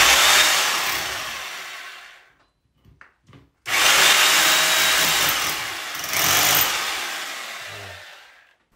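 Electric hammer drill boring 6 mm holes into a wall for wall plugs, in two runs. The first lasts about two seconds. The second starts a little over three seconds in and lasts about five seconds. Each dies away as the drill is eased off, and a couple of faint clicks fall between the runs.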